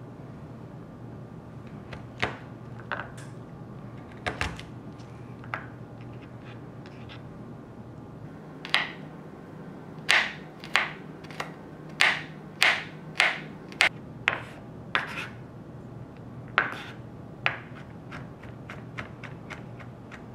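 Chef's knife chopping garlic on a wooden cutting board: a few scattered knocks of the blade on the wood, then a run of about a dozen sharp knocks, roughly two a second, thinning out near the end.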